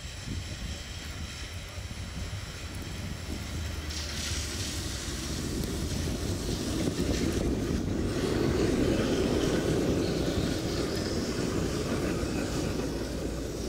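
Articulated electric tram approaching on a snow-covered track and passing close by. Its running noise of wheels on rail builds up and is loudest past the middle as the cars go by.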